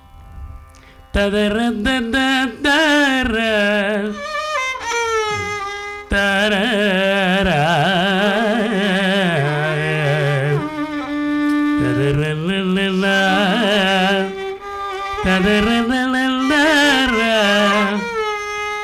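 Male Carnatic vocalist singing a wordless raga improvisation (alapana): long phrases that swing up and down with heavy oscillating ornaments, broken by short breathing pauses.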